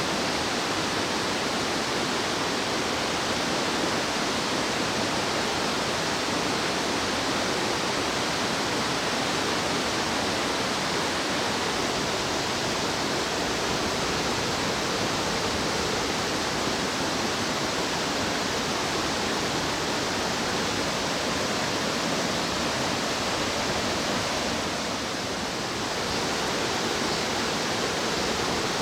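Fast-flowing mountain stream rushing over rocks: a steady, even rush of water that dips slightly for a moment near the end.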